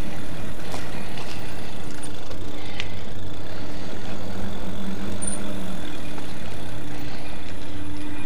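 Home-built electric bike being ridden along a path: a steady rush of tyre and wind noise, with a low, even hum from its motor.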